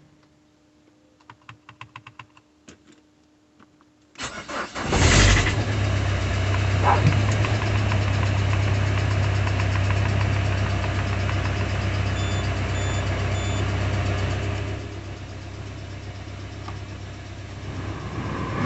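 Peugeot 406 Coupé engine being started for the first time after a timing belt replacement. A faint hum and a few light clicks come first, then the starter cranks about four seconds in and the engine catches at once. It runs steadily at a fast idle and settles quieter about fifteen seconds in.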